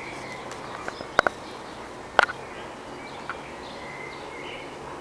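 Faint bird calls over a steady background, broken by sharp clicks: two close together a little over a second in, and a louder one about two seconds in.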